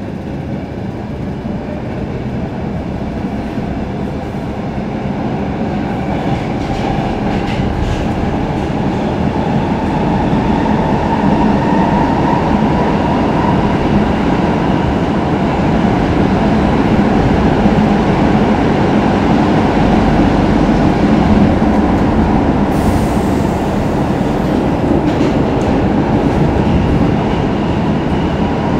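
Stockholm Metro C6 train heard from inside the passenger car, pulling away and gathering speed: its running noise grows louder over the first ten seconds or so, then carries on steadily at speed.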